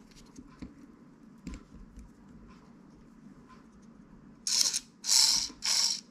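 Faint clicks and rustles of fishing line being handled, then a small battery-powered electric fishing line remover starting about four and a half seconds in. It runs in three short bursts of high-pitched whirring as it pulls line off a spinning reel.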